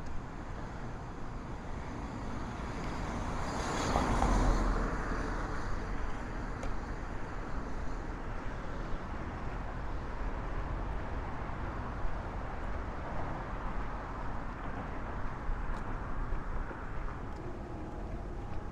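Street traffic noise, with one vehicle passing close that swells and fades about four seconds in.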